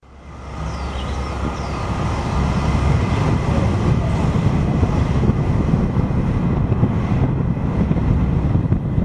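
Wind buffeting the microphone over the rumble of a vehicle moving along a road, fading in over the first two seconds. A few faint high chirps, likely birds, come about a second in.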